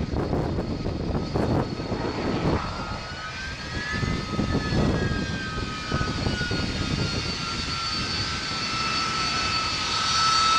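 Twin-engine fast jet taking off on full power with reheat (afterburners lit): a heavy crackling rumble under a high engine whine that rises and then falls in pitch, swelling louder near the end.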